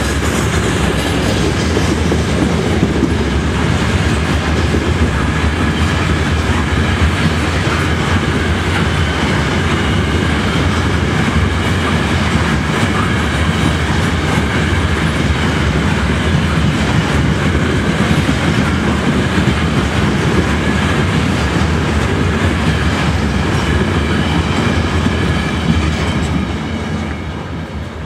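A freight train of loaded covered hopper cars rolling past close by, a steady loud rumble of wheels on the rails. It drops away near the end as the last car goes by.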